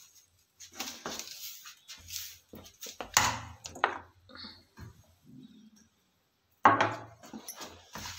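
Grass broom (jhadu) sweeping a tiled floor in a run of short swishing strokes, loudest about three seconds in and again near the end.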